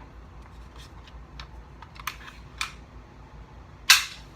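Light plastic clicks of a Nerf Sling Strike dart blaster being handled and loaded, then one loud sharp snap near the end as it fires.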